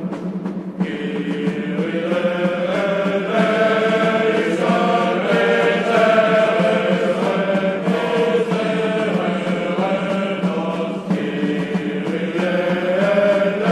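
Music: a melody moving in held notes over a steady low drone.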